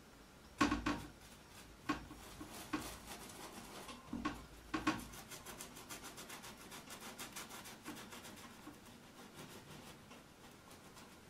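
Paintbrush bristles scrubbing across stretched canvas: a few sharper scrapes and knocks in the first five seconds, then a quick, even run of short strokes that fades toward the end.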